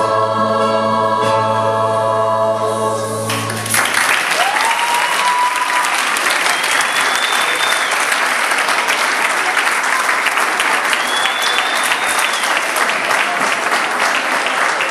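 A large school choir holds its final chord, which cuts off about three and a half seconds in; the crowd then breaks into loud, sustained applause with a few cheering calls rising over it.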